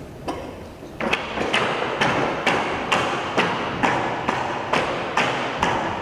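Bamboo poles of a tinikling pole dance knocking in a steady rhythm, about two sharp wooden strikes a second, beginning about a second in.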